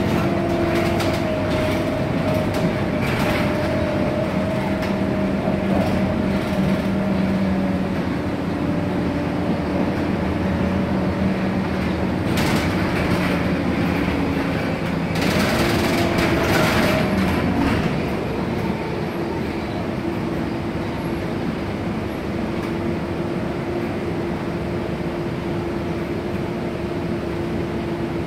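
City bus heard from inside the cabin: the engine and driveline drone with a steady whine while the bus is moving, with two short bursts of hiss about midway. About two-thirds through it settles to a quieter, steady hum as the bus slows and stands at a red light.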